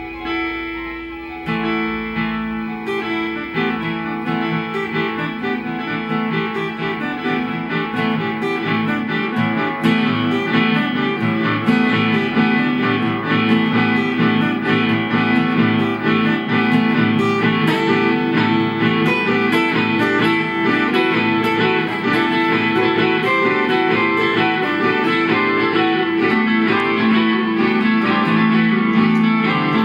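Guitar music played through an amplifier: a run of plucked notes, with a lower part coming in about a second and a half in, growing gradually louder.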